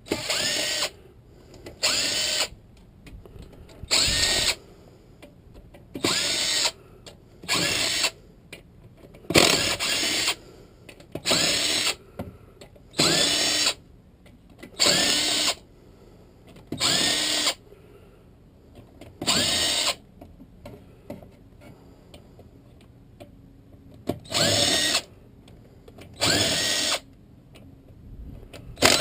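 Cordless power tool driving out transmission case bolts in about a dozen short runs of under a second each, one every second or two, with a longer pause in the middle. The motor's pitch rises and falls in each run.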